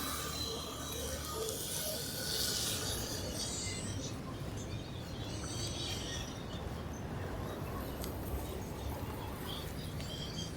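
Faint outdoor street ambience. A passing car fades away at the start, leaving a steady low background hum with scattered faint chirps.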